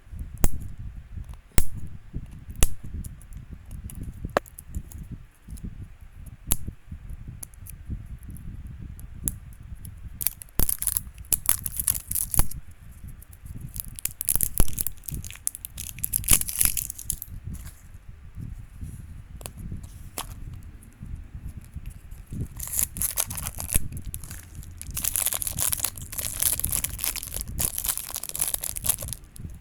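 Blind-bag packaging being torn open and crinkled by hand, with several long stretches of rustling and tearing. Sharp clicks and taps from handling come in between.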